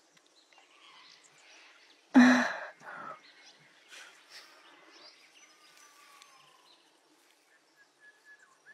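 A short, breathy vocal sound from one of the women about two seconds in, with a smaller one just after, over faint outdoor ambience.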